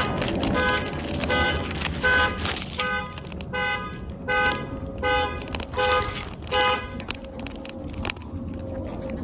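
A truck's alarm sounding its horn in repeated short honks, about three every two seconds, which stop about seven seconds in.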